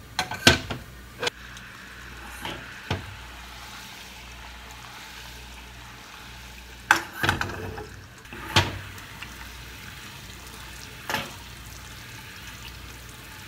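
Sugar-and-water syrup boiling in an aluminium saucepan over a gas burner, a steady hiss. Several sharp metallic knocks cut through it as the pan is lifted, swirled and set back on the cast grate; the loudest come near the start and about seven and eight and a half seconds in.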